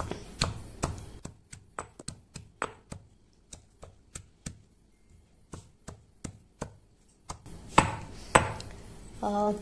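Granite pestle pounding raw mango pieces, green chillies and spices in a stone mortar: a steady run of knocks, about three a second, softer in the middle with two louder strikes near the end.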